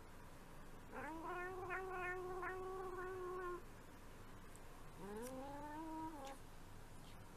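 A cat gives two long, drawn-out meows. The first starts about a second in, rises, then holds a steady pitch for over two seconds. The second, shorter one comes about five seconds in and also rises before levelling off.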